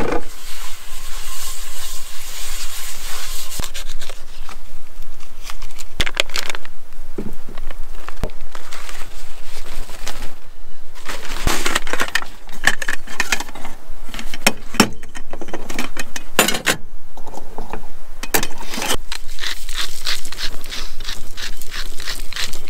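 Camp cookware being handled: a paper towel rustling as it wipes a cast-iron skillet, then nested metal camping pots and lids clinking and knocking together, with scattered sharp clicks throughout.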